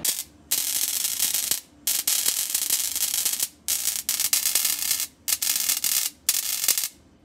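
EDM drill's spark discharge crackling and hissing as its electrode burns out a broken drill bit. It runs in stretches of one to two seconds, broken by brief pauses.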